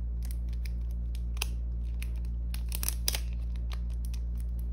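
Clear plastic photocard sleeve crinkling and crackling as a card is pushed into it by hand, in scattered sharp crackles that bunch up about a second and a half in and again around three seconds in, over a steady low hum.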